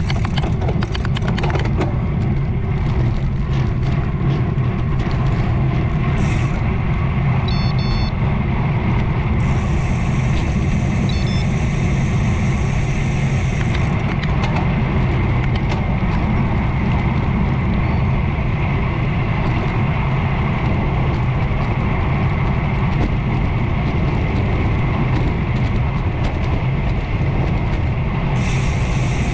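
Steady wind noise rushing over a bicycle-mounted camera's microphone as a road bike rides fast downhill.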